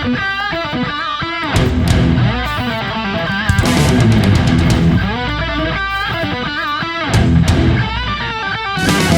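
Background rock music with distorted electric guitar riffs, bass and drums.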